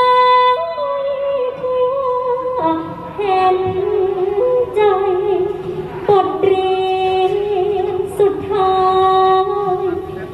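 A woman singing a Thai likay song through a headset microphone, holding long drawn-out notes that waver and slide from pitch to pitch.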